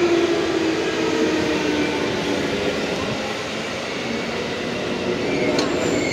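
Yellow JR West electric train, Okayama depot set G-08, pulling out of the station and running past: a steady rumble of wheels and motors, with a falling hum at the start. Near the end a high thin wheel squeal sets in as the last car goes by.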